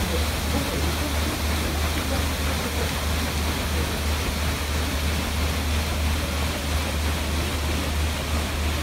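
Stern paddlewheel of a paddle-wheel cruise boat churning the lake water, a steady rush of splashing, foaming water over a steady low drone.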